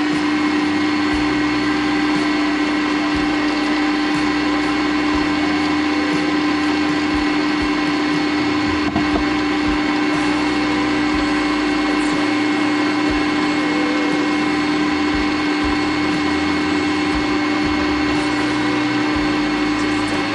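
Cecotec Mambo kitchen robot's motor running at a steady high speed with a strong, even whine, whipping egg whites for the meringue; it cuts off at the very end.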